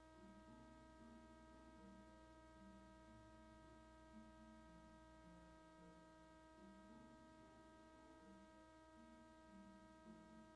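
Near silence: a steady electrical hum with several faint high whining tones, and faint low notes shifting in pitch underneath.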